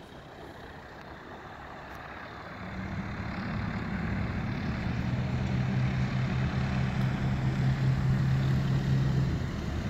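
Engine and propeller of a small single-engine piston airplane droning steadily. The drone grows louder from about two and a half seconds in as the plane rolls along the runway, then falls off just before the end, with wind buffeting the microphone.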